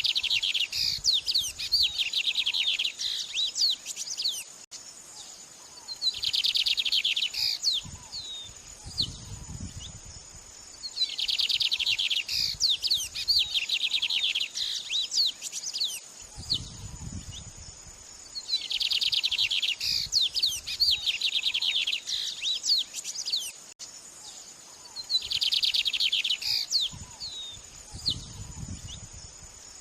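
White-rumped shama (murai batu) singing: a series of phrases, each a quick run of rapidly repeated trilled notes lasting about two seconds, separated by pauses of a few seconds filled with scattered short whistled notes.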